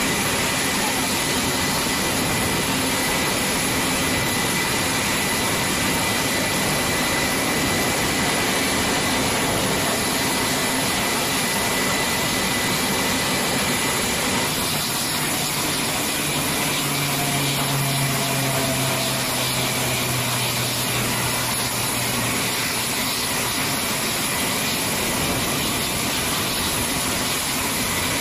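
C-130H Hercules turboprop engines running on the ramp: a steady, loud turbine rush with a thin high whine over it. A lower hum joins for several seconds a little past the middle.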